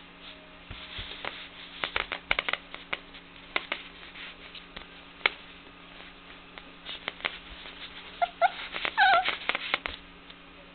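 Four-week-old Border Collie puppies at play: scattered sharp clicks and scuffles, then a few short whimpers and yips about eight to nine and a half seconds in.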